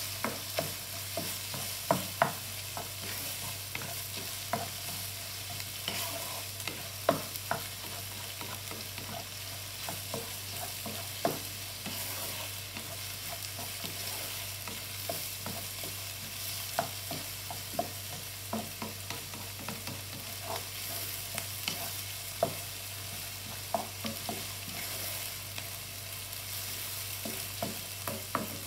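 Sausage, ham and onion slices frying in a nonstick pan, with a steady sizzling hiss. A wooden spatula stirring them knocks and scrapes against the pan at irregular moments.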